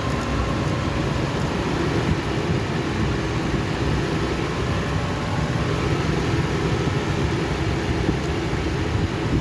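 2009 Ford Explorer engine idling steadily.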